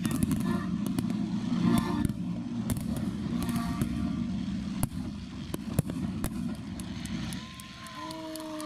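Aerial firework shells bursting in a dense barrage: many sharp bangs and crackles over a continuous low rumble, thinning out near the end.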